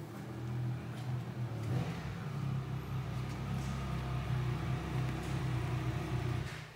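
Honda CRF1100 Africa Twin's 1100 cc parallel-twin engine idling steadily, stopping near the end.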